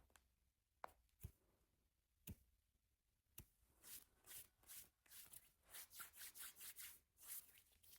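Faint handling noise: a few separate clicks, then a quick run of soft rustling strokes, like hands or paper being moved.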